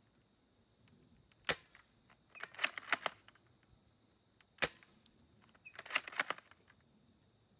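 Spring-powered bolt-action airsoft sniper rifle firing twice, each shot a single sharp crack. Each is followed about a second later by a quick run of clicks as the bolt is worked to cock the spring for the next shot.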